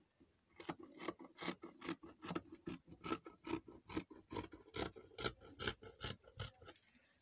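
Scissors snipping through stretch knit fabric, a steady run of short cutting snips at about four a second.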